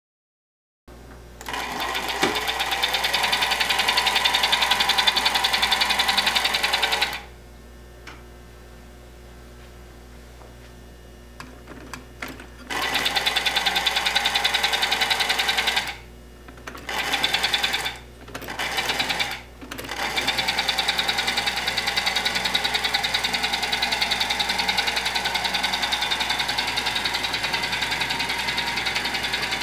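Vintage American Flyer model train's electric motor and gearing running with a fast, even whirr. It cuts out about seven seconds in, starts and stops three times over the next several seconds, then runs steadily.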